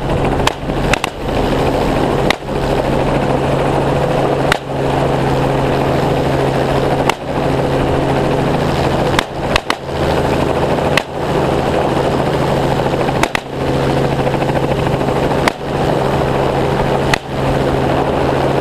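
Helicopter engine and rotor running steadily, with about a dozen rifle shots fired from the aircraft at irregular intervals of one to three seconds.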